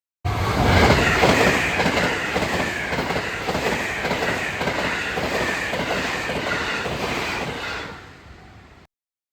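Train running past, wheels clicking rapidly over the rails, with a high whine that slowly falls in pitch. The sound fades away about eight seconds in.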